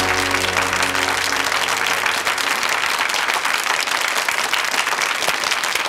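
Studio audience applauding, a dense, steady run of clapping, with the last notes of the show's theme music dying away about a second in.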